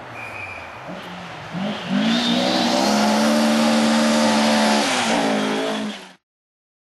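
Ford Escort Mk2 rally car's engine at full throttle as the car approaches: faint at first, then the note rises and swells about two seconds in and holds high and steady. It dips near the end and cuts off abruptly.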